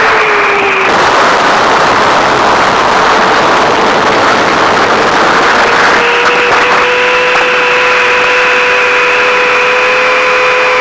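A 9-inch FPV quadcopter's motors and propellers whining over rushing air. About a second in the whine slides down and fades into the rush, then it returns at a steady pitch about six seconds in.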